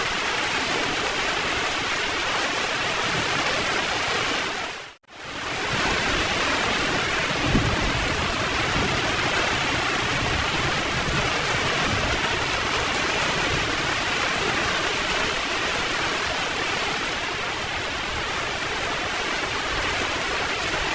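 Heavy rain falling steadily, with a low roll of thunder starting about seven and a half seconds in and rumbling on for several seconds. About five seconds in, the rain briefly fades out to silence and back in.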